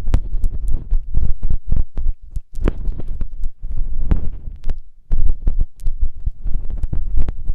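Close-up ASMR rubbing on a binaural ear microphone: low rumbling thumps with rapid, irregular crackles and clicks on top.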